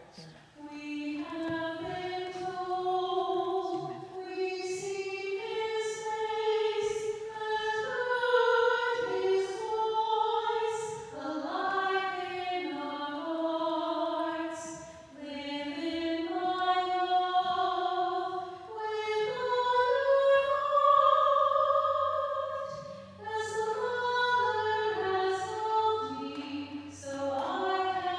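A slow hymn sung in long, held notes, moving stepwise from note to note.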